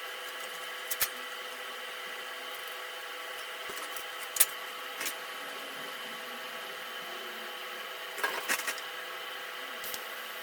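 A few short, sharp clicks and knocks of tools and small metal parts being handled, the loudest about four seconds in and a small cluster near the end, over a steady hiss and faint hum.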